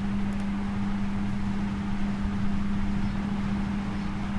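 Steady low hum with an even hiss of background noise and no speech.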